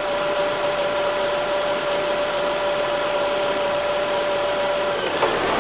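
Honda Accord's 2.4 VTEC four-cylinder engine idling, its new accessory belt running, with a steady tone over the engine note. About five seconds in, the tone stops and the sound grows a little fuller as the air-conditioning compressor cuts in.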